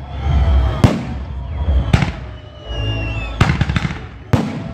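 Fireworks display: aerial shells bursting with sharp bangs, about six in all, one about a second in, one at two seconds, a quick cluster a little past three seconds and one more near the end.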